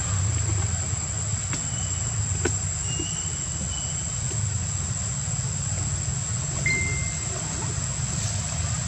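A steady low rumble with a constant thin high whine above it, broken by a few faint clicks and two or three brief high chirps.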